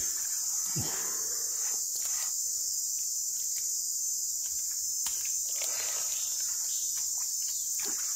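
Steady high-pitched buzzing of a forest insect chorus, with a few faint clicks and rustles.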